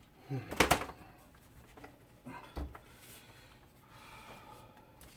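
Heavy electric typewriter being shifted and lifted on a hard surface: a sharp knock about half a second in, a second thud around two and a half seconds, and light clicks and rubbing between.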